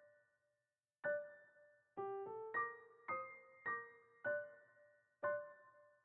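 Slow, soft electric piano notes struck one at a time, each ringing and fading, with a pause of about a second near the start and a two-note figure about two seconds in.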